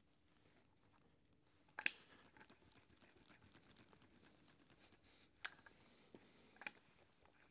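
Faint rubbing and scraping as a hand roller and gloved hands press a freshly hot-glued rug edge down, with a few sharp clicks, the loudest about two seconds in.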